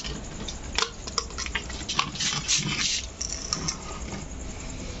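Shiny plastic bag crinkling and rustling in quick irregular crackles and clicks as it is handled around a spectacled cobra to bag it, with a denser patch of rustling about two seconds in.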